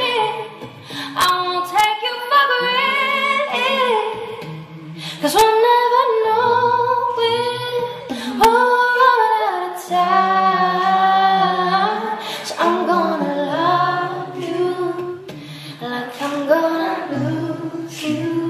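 A woman singing a song live into a microphone, heard from the audience.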